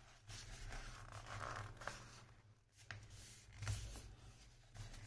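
Paper sheets being folded by hand into fan pleats and pressed into tight creases: faint rustling and rubbing of paper, with a few short scrapes.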